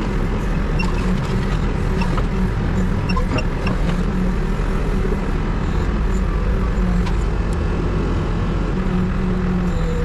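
Diesel engine of a Hepco HLB95B backhoe loader idling steadily, heard from inside the operator's cab, with a few faint light clicks.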